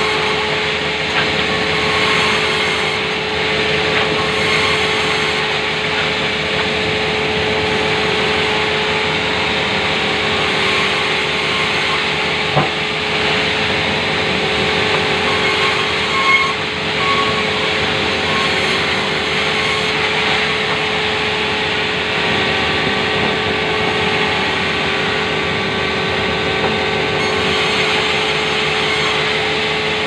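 Sawmill band saw running steadily with a constant hum, its blade cutting through lengths of timber being fed into planks. A single sharp knock comes about twelve seconds in.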